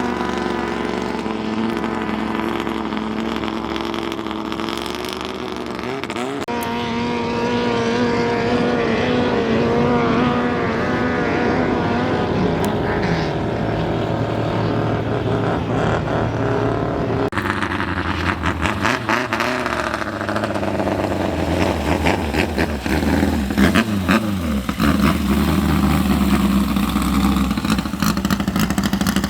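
Racing speedboat engines running, their pitch wavering and rising and falling as they rev. Over the second half the engine sound turns choppy, with rapid pulses.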